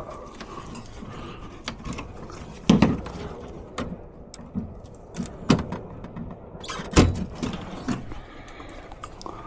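Scattered clicks and knocks of tools and parts being handled while an air conditioner is taken apart, with three louder knocks about three, five and a half and seven seconds in.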